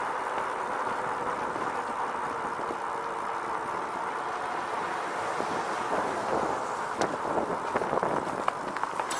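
Riding noise of a RadRover electric fat-tire bike rolling along a paved path: steady tyre and drive noise mixed with wind on the bike-mounted microphone. In the last few seconds there are several short knocks and rattles from bumps.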